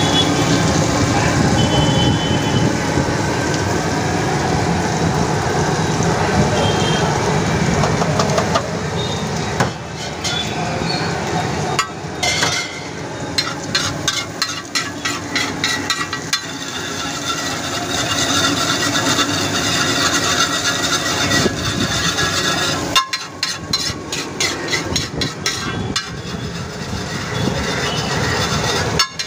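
A flat metal spatula scraping and tapping quickly on a large flat griddle as an egg keema mixture fries and is stirred and chopped. From about ten seconds in the scrapes and clicks come fast and close together. A dense steady background din fills the first part.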